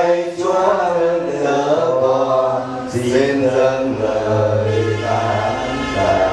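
A small group of men and women singing a Vietnamese Catholic hymn of thanksgiving together, in slow, drawn-out notes.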